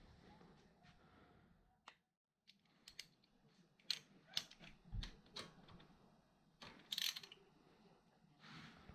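Faint, scattered clicks and light knocks of hand tools and small metal parts being handled. The loudest come about four, five and seven seconds in, and the sound drops out to dead silence for a moment about two seconds in.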